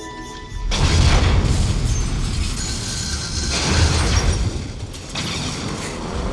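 A heavy Freightliner tow truck crashing down and scraping along concrete: a sudden loud crash with a deep boom under a second in, then grinding metal and clattering debris, with a second loud impact about four seconds in.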